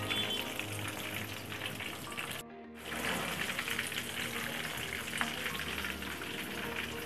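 Breaded chicken cutlet shallow-frying in hot oil in a pan: a steady, dense crackling sizzle. It drops out briefly about two and a half seconds in, then resumes.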